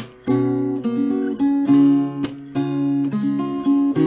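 Instrumental passage of a song: acoustic guitar strumming chords that change every half second or so, with a short break right at the start.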